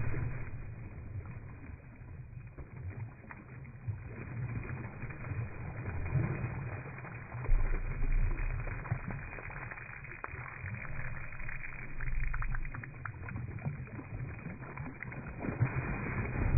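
Pool water splashing as a dog bites and lunges at it, slowed down into low, muffled whooshes and rumbles. It surges louder about seven seconds in, again around twelve seconds, and near the end.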